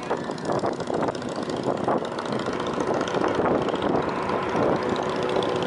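Distant SpaceX Falcon 9 rocket in ascent, its nine Merlin first-stage engines heard as a steady rough noise with crackle.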